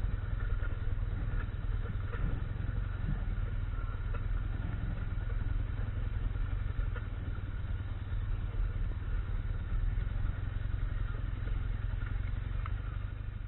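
Motorcycle engine running at low speed with a steady low rumble, recorded by a camera mounted on the bike.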